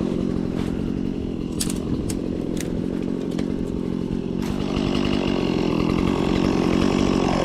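Chainsaw engine running steadily, with a few sharp snaps about two seconds in; it grows a little louder and brighter about halfway through.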